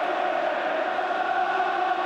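Massed football crowd singing and chanting on the terraces, a steady drawn-out roar of many voices holding notes together.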